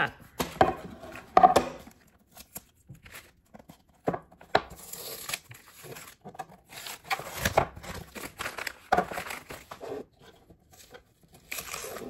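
Painter's tape and masking paper being peeled off a painted panel frame: tearing and paper crinkling in irregular bursts, with quiet gaps between pulls.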